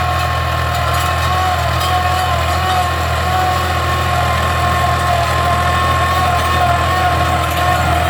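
Tractor engine running steadily, a low drone with a steady high-pitched whine over it.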